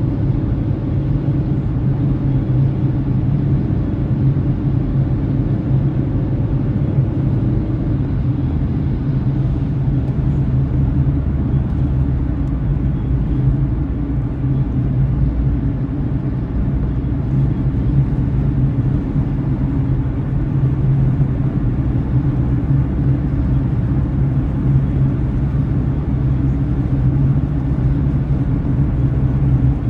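Steady low rumble of a car driving along, from its tyres and engine. A faint tone fades out about eight seconds in.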